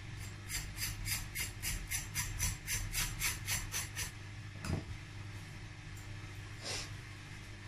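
A table knife scraping the burnt crust of a baked honey cake in short rapid strokes, about four a second, for a few seconds, followed by a single knock.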